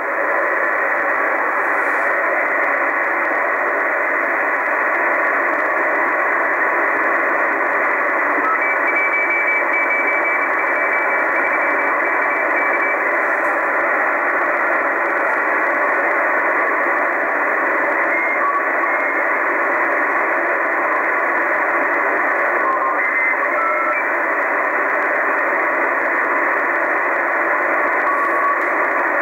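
Tecsun PL-880 shortwave receiver in LSB mode giving steady band-limited hiss and static through its speaker while being tuned across the 80-metre amateur band. A few faint, brief whistling tones come and go in the noise.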